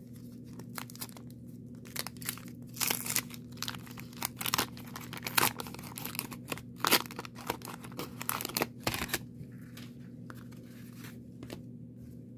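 Wax paper wrapper of a 1990 Donruss baseball card pack being torn open and crinkled by hand, in a run of irregular crackling tears for about nine seconds, then only a few small ticks near the end.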